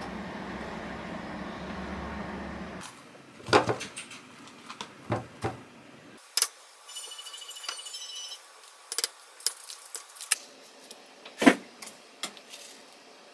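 A steady low room hum, then light kitchen handling sounds: scattered clicks and knocks as strawberries are taken from a plastic punnet and dropped into a plastic colander, and clinks of a spoon against glass dessert bowls. The loudest clink comes near the end.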